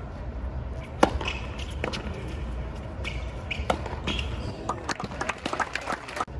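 Tennis ball bounced a few times on the hard court by the server before serving, as separate sharp knocks, over a low crowd murmur.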